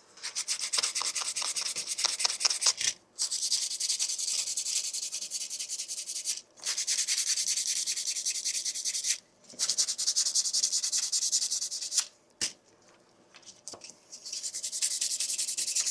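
Hand sanding a 3D-printed plastic claw with sandpaper: quick back-and-forth scratchy strokes in runs of a few seconds, with short pauses about 3, 6 and 9 seconds in and a longer break after about 12 seconds before the sanding starts again.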